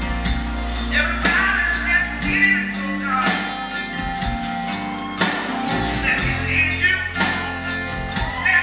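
Live rock band playing: a drum kit keeping a steady beat under guitars and keyboard, with a man singing.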